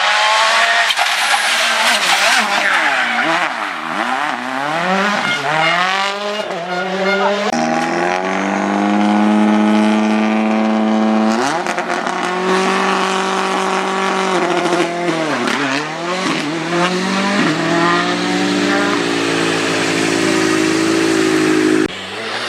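Rally car engine at hard revs, its pitch sweeping up and down several times, with long stretches held steady at high revs.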